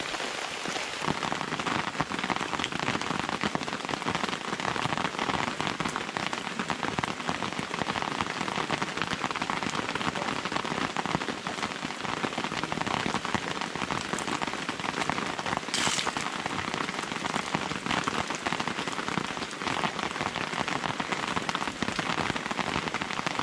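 Steady rain falling, with many drops pattering on camping tarps overhead.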